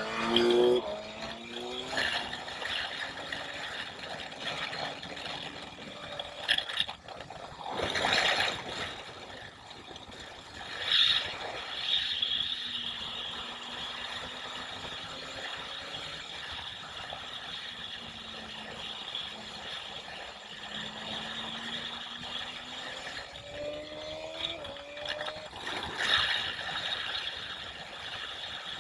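BMW S1000XR's inline-four engine running at speed on a track lap, its note dipping and rising again with the throttle. Heard from a camera on the bike, with wind buffeting the microphone in several loud gusts.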